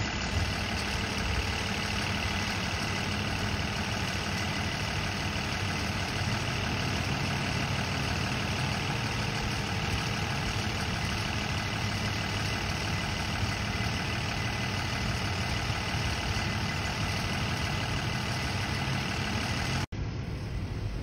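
A large vehicle's engine idling steadily with a low hum, unchanging throughout and broken by a split-second dropout near the end.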